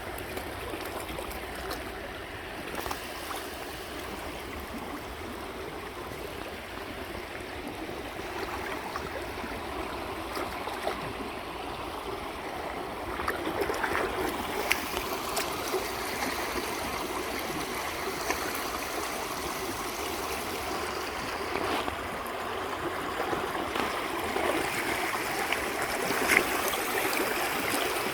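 Shallow river running over rocks: a steady rush of flowing water, a little louder in the second half, with a few faint clicks.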